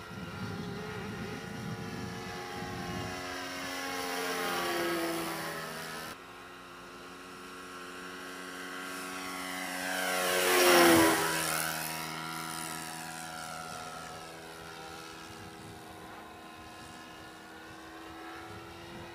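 HP VT21 rotary-valve four-stroke model aircraft engine running as the RC plane flies by. Its note rises and swells as it approaches and drops off suddenly about six seconds in. A low pass about eleven seconds in is the loudest, its pitch falling sharply as it goes past, then it fades to a steady distant drone.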